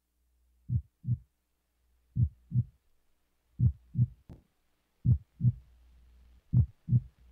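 Heartbeat sound effect: a slow, steady double thump, lub-dub, repeating about every second and a half.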